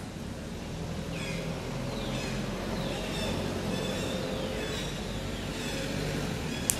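Outdoor ambience: a bird repeats a short falling call about once a second over a steady low engine hum, with one sharp click near the end.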